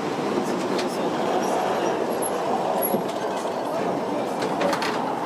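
Tram running along its rails, a steady rumble of wheels and rattling car body heard from inside the car.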